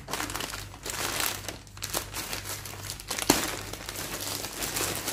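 Thin plastic carrier bag crinkling and rustling as hands open it and rummage inside, with one sharp snap about three seconds in.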